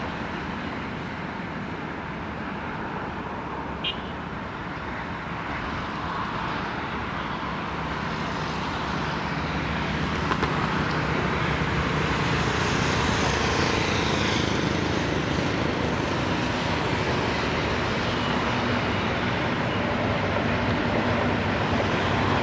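Passing express train, a WAP-7 electric locomotive followed by LHB coaches: a steady rumble of wheels on rails that grows louder through the first half and then holds.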